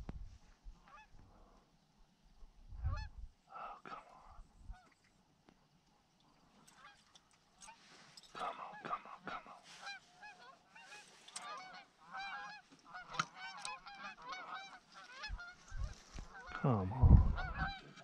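A flock of Canada geese honking: a few scattered calls at first, then from about seven seconds in many short overlapping honks as the flock calls continuously. Near the end there is a louder, lower call close by.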